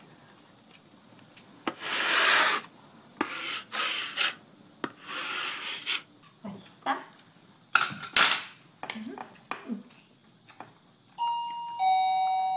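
Several swishing, rubbing strokes of hands smoothing paper onto a wall, with a few short sharp rustles. Near the end an electronic two-note ding-dong doorbell chime sounds, then starts again.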